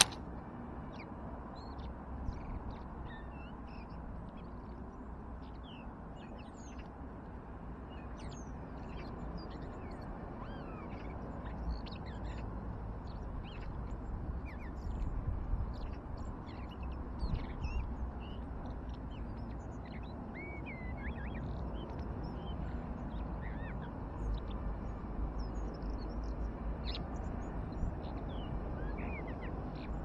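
Birdsong from several garden birds: scattered short chirps and whistled song phrases, over a steady low rumble.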